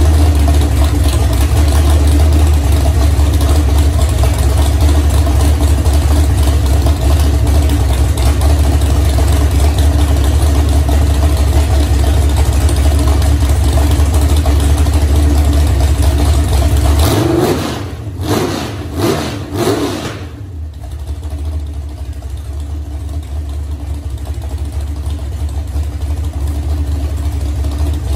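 A Box-built big-block Chevy V8, a 427 stroked to 490 cubic inches and fed by a four-barrel carburetor, running steadily on an engine stand. About two-thirds of the way in, the throttle is blipped a few quick times, and then the engine settles back to a lower, quieter idle.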